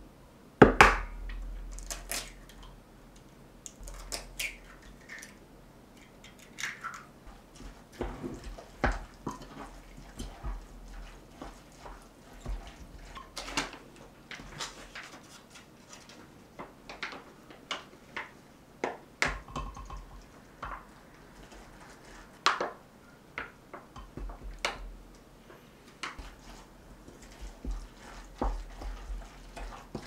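A wooden utensil stirring and scraping a mushroom-and-tuna filling in a glass measuring cup, with scattered clicks and knocks against the glass. The loudest is a sharp knock about a second in, as an egg is cracked into the mix.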